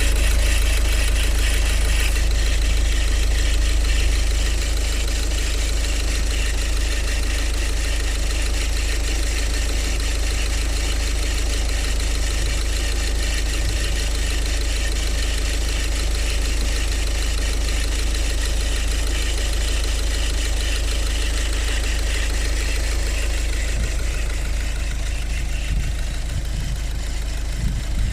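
Ford Focus Mk3 1.6 TDCi four-cylinder diesel engine idling steadily, with an annoying noise from around the auxiliary serpentine belt area. The owner finds the noise persists even with the belt removed, so the belt, tensioner, AC compressor and alternator are not its cause.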